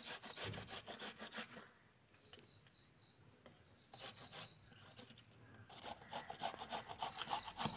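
Peeled raw cassava being grated on a plastic box grater: quick rasping strokes, thinning out and fainter in the middle, then coming faster again near the end.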